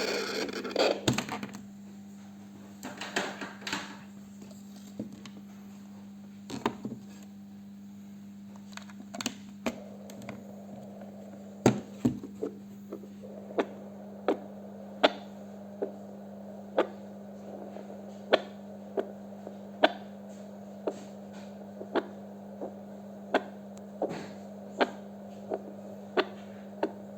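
Handheld fetal Doppler (PDF22C) loudspeaker: the probe scrapes and rubs at first, then it picks up a regular whooshing pulse, about four beats every three seconds, over a steady hum.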